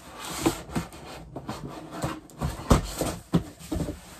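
Handling noise: a string of knocks and thuds with some rustling as things are picked up and moved, the loudest knock a little past the middle.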